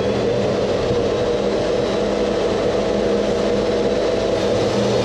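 DeWalt jobsite table saw running steadily, its blade cutting a bevel along a strip of plastic stock.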